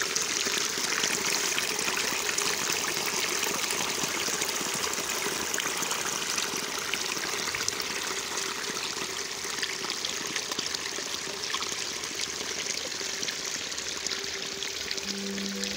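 Water running and trickling into a flooded rice paddy, a steady rush that grows a little softer near the end.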